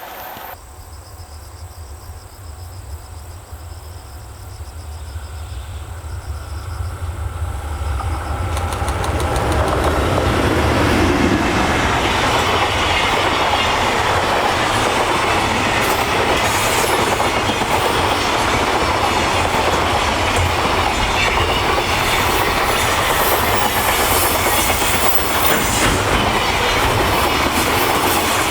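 EH500 electric locomotive hauling a long container freight train, approaching with a rumble that grows louder over about ten seconds. The wagons then roll past steadily with a rhythmic clickety-clack of wheels over rail joints.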